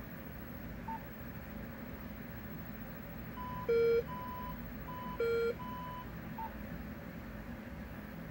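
Electronic beeps from a custom computer tour-program startup sequence: a short blip, then a run of short high beeps with two louder, lower beeps about a second and a half apart, over a steady low hum.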